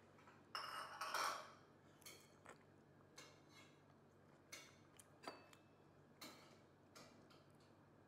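Faint clinks and taps of a metal spoon against a porcelain bowl while eating, about seven separate light clicks spaced irregularly, with a longer, noisier scrape about a second in.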